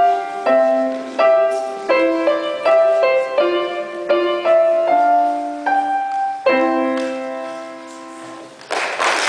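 Grand piano playing a slow melody over chords, ending on a held final chord that fades away. Applause breaks out near the end.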